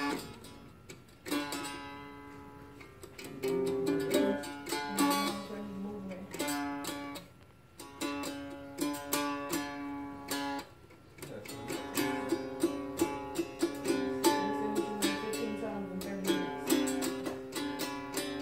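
Small acoustic guitar strummed and picked, playing chords in short phrases with brief pauses between them and steadier strumming toward the end.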